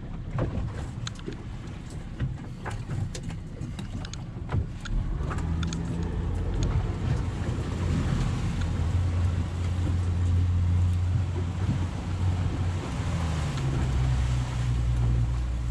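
Boat engine running with a steady low hum that grows louder about five seconds in, over wind and water noise. A few light knocks come in the first seconds.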